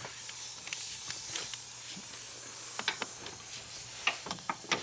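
Steady hiss of compressed air from a pneumatic air line, with a few light clicks of tools on metal: a cluster about three seconds in and more near the end.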